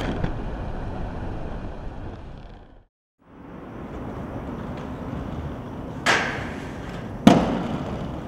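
Inline skate wheels rolling on concrete, with two sharp clacks of the skates about six and seven seconds in, the second louder. The sound cuts out to silence for a moment about three seconds in.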